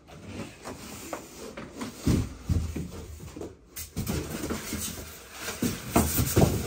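Cardboard TV box and polystyrene foam packing being handled and pulled apart: rustling, scraping and knocks, with a few dull thumps about two seconds in and again near the end.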